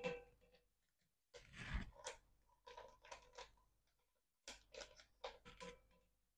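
Paper sachets of agar-agar powder crinkling and being shaken out as the powder is poured into a pot, in several short crackly bursts.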